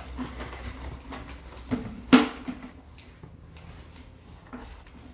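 Handling clicks and knocks from a sewer inspection camera rig as its push cable is drawn back, over a low steady hum. One sharp click comes about two seconds in.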